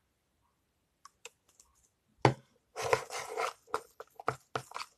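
Slime being stirred with a plastic spoon in a plastic bowl: a few faint clicks, one sharp thump about two seconds in, then a dense run of sticky, wet clicking and crackling.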